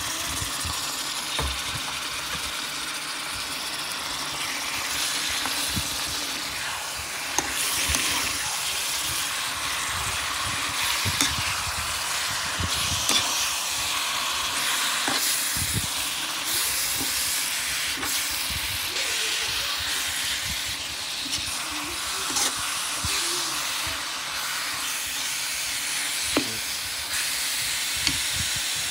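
Raw goat meat sizzling with a steady hiss in a hot pan of fried garlic while it is stir-fried. A metal spatula clicks and scrapes against the pan several times.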